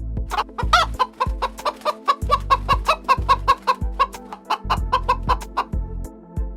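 Chickens clucking in a quick run of short notes, about four or five a second, over background music with a bass line.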